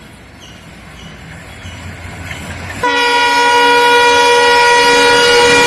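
Twin ALCO WDG3A diesel locomotives accelerating, their engine rumble slowly growing louder. About halfway through, the locomotive horn sounds one long, loud, steady blast.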